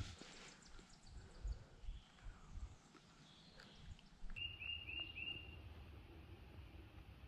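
A few low thumps and faint rustling from a hunter shifting his gun and body on the forest floor, then about four seconds in a bird gives four quick high chirps in a row.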